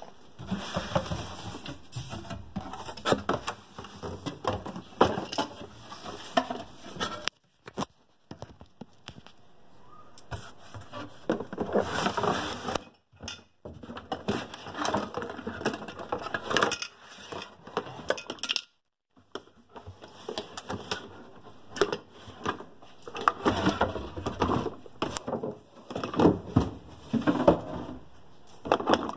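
A cardboard box and its packing being handled and opened by hand: irregular rustling, crinkling and scraping with sharp cracks, broken by a few short pauses.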